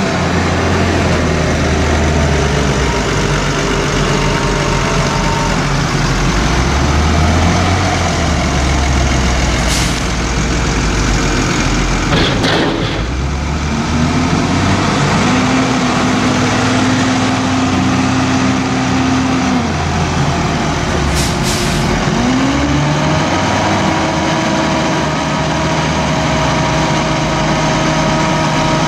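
Diesel engines of a New Holland tractor and a JCB loading shovel running steadily, with a few sharp knocks. Twice, about halfway through and again later, the tractor's revs climb and hold as the tipping trailer's hydraulics raise the body and the chopped grass silage slides out.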